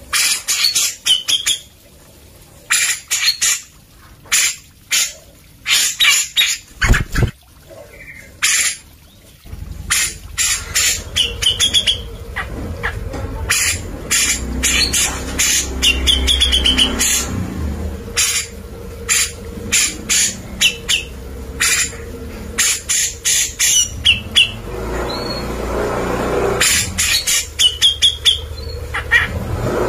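Grey-cheeked bulbul (cucak jenggot) calling vigorously: runs of short, sharp, harsh notes in quick succession, some with a brief wavering whistle. A low rumble sits underneath from about ten seconds in.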